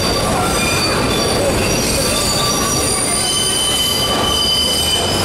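Vintage IRT Lo-V subway car running with its steel wheels squealing on the rails, several thin high squeals over a steady rumble, as the train takes the tight curve of the City Hall loop.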